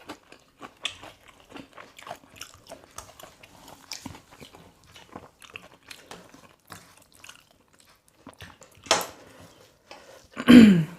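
Close-miked eating sounds: chewing and biting into chicken, a steady run of small wet clicks and crunches. Near the end comes a louder breath, then a short hummed vocal sound falling in pitch.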